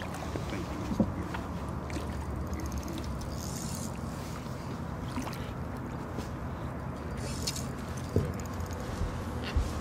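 Steady low hum of a boat on the water, with a few sharp knocks and two short bursts of rapid high clicking while a hooked striped bass is played at the surface.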